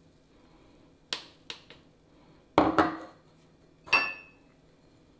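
Kitchenware clinking and knocking against a mixing bowl while flour is added to cake batter: a handful of separate sharp knocks, the loudest about two and a half seconds in, and one near the four-second mark that rings briefly.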